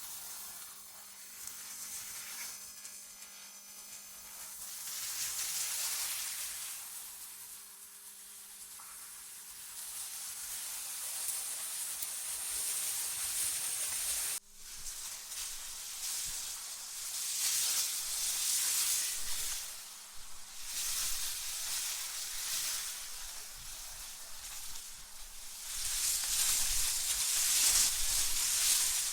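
AI-generated wind ambience: a hissing rush of wind that swells and fades in gusts every few seconds, cutting out abruptly for an instant about halfway through, over a faint steady low hum.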